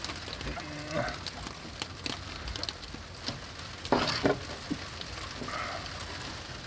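Sleet and rain pattering steadily on plastic sheeting taped over a boat's cabin screen, with a few sharp crinkles and clicks from a hand handling the screen panel, loudest about four seconds in.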